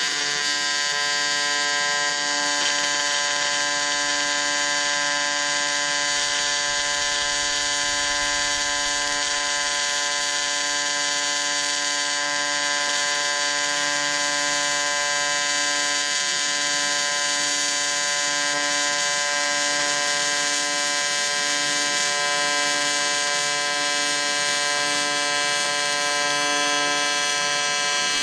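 TIG welding torch arc burning steadily through one continuous practice weld, an even electric buzz.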